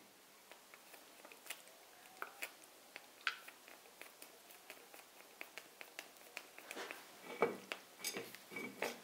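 Faint scattered clicks and light metal clinks from a piston and connecting rod assembly being handled over an engine block, with a few louder knocks near the end.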